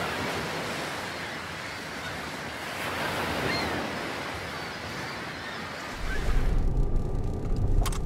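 Surf: a steady rush of waves breaking on a sandy beach. About six seconds in, it gives way to the low rumble of a car's cabin.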